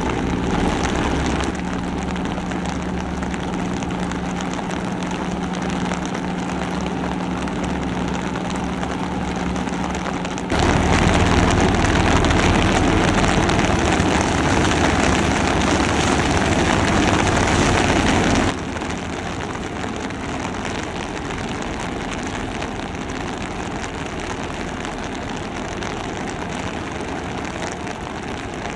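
Steady low drone of a large ship's engines heard across the water. A louder rushing noise takes over from about ten to eighteen seconds in, and the sound changes abruptly where shots are cut together.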